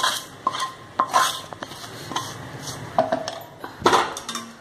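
Wooden spatula scraping fried greens out of a pan into a steel mixer-grinder jar: a run of knocks and scrapes against the metal, with a louder clank about four seconds in.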